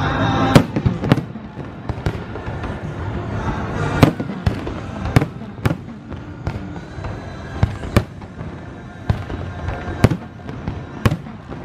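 Aerial fireworks going off in a display: a dozen or so sharp bangs at irregular intervals, some close together, over a steady background rumble.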